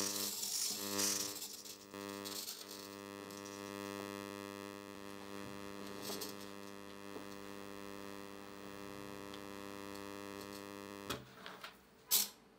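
Hobby servos on a pan-tilt camera gimbal: a whirring rattle in the first two seconds, then a steady electrical buzz while they hold position. Near the end the buzz cuts off and a few sharp clicks follow as the battery connector is pulled.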